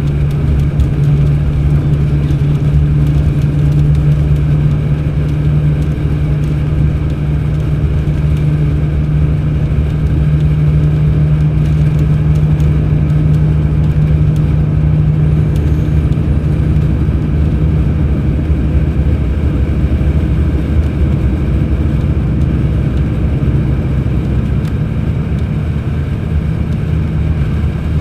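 Mercedes-Benz O500 RSD BlueTec5 coach's diesel engine running under way at a steady speed, a constant low hum with no revving up or down.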